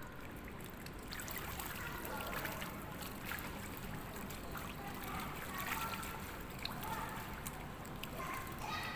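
Pool water splashing and lapping around a swimmer doing breaststroke, a steady watery wash with small scattered splashes.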